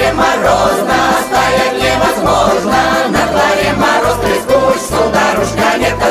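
Russian Cossack folk song: a choir singing over instrumental accompaniment with a steady pulsing bass beat.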